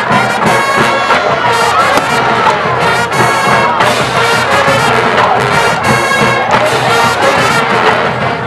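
High school marching band playing its field show, the brass section loud and sustained over the band.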